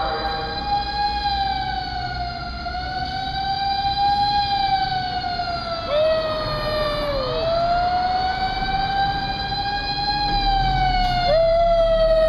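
A miniature schnauzer howling along with an emergency vehicle's wailing siren: long tones that slowly rise and fall, with fresh howls starting abruptly about six seconds in and again near the end, where it is loudest.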